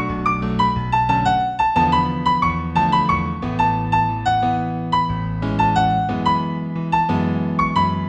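Solo piano music in A major: a slow melody of single struck notes over held chords in the bass.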